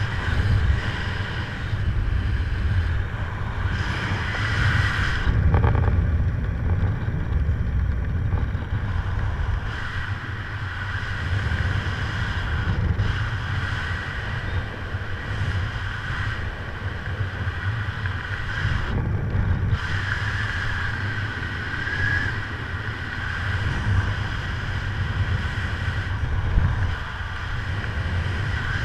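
Wind rushing over a helmet camera's microphone during a parachute descent under an open canopy: a steady low rumble that swells and eases without stopping.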